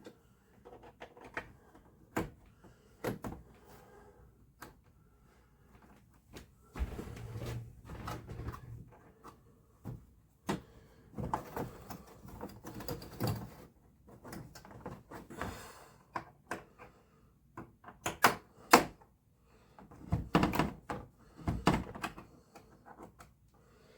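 Monitor parts being handled during disassembly: irregular clicks, knocks and scraping of plastic and metal, the loudest knocks about three quarters of the way through.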